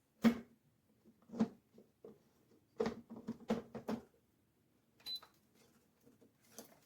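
A series of sharp clicks and knocks from hard objects being handled, with the loudest knock just after the start and a quick cluster of clicks about three to four seconds in.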